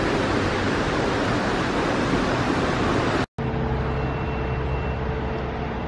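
Shallow mountain river rushing over stones, a dense steady roar of water. About three seconds in it cuts off abruptly and gives way to street traffic with a steady engine hum.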